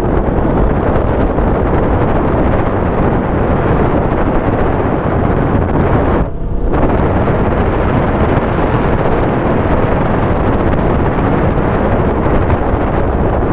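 Wind rushing loudly over a GoPro's microphone while riding a KTM motorcycle, with the bike's running and road noise beneath it. About six seconds in the rush drops back for half a second, then returns.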